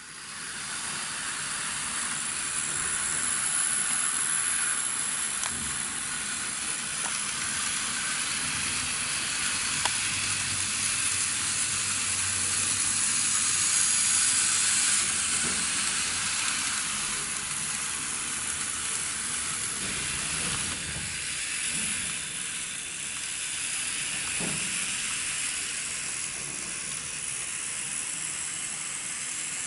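N gauge model train running on the track: a steady hissing whirr of small wheels and motor on the rails, with a few faint clicks. It swells a little between about ten and fifteen seconds in, then eases back.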